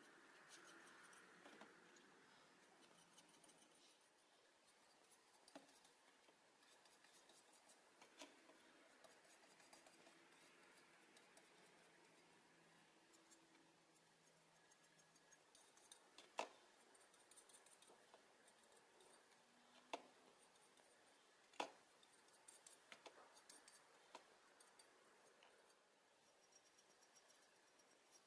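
Near silence: faint room tone with scattered small clicks and taps of tools and small metal parts being handled, and three sharper clicks in the second half.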